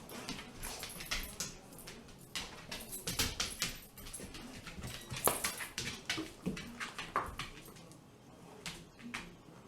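Dog chewing a Brussels sprout, with irregular wet crunches and mouth clicks, and a short whine about five seconds in and again about seven seconds in.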